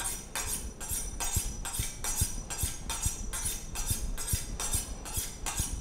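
Kitchen knife blade swiped quickly along a honing steel, alternating sides, in an even rhythm of about four scraping metal strokes a second: honing to finish the edge after whetstone sharpening.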